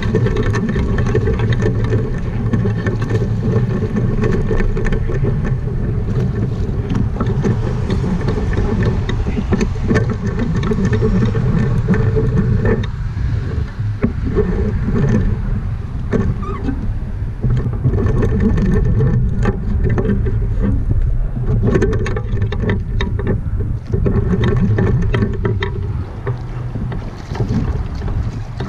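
Wind buffeting a camera microphone: a loud, steady low rumble.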